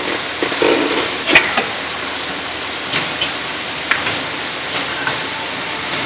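Tyre-changing machine working a motorcycle tyre off a spoked rim: a steady mechanical running noise with a few sharp metal clicks from the bead bar and hook against the rim.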